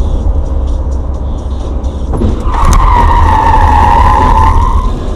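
Steady low road and engine rumble heard inside a moving car, then a sharp thump a little over two seconds in, followed by tyres squealing in a hard skid for about two seconds while a car crashes and rolls over.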